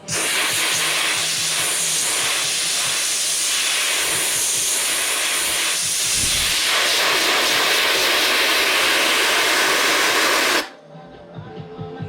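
Welder running on a sheet-metal patch panel in a car fender: a loud, steady hiss that starts abruptly and cuts off suddenly after about ten and a half seconds.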